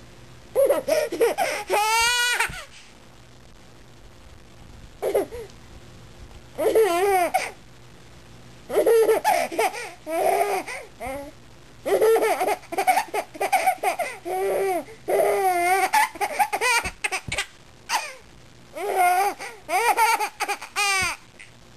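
Baby laughing in bursts of giggles, with a high squeal about two seconds in, a short pause, then a long run of quick laughs.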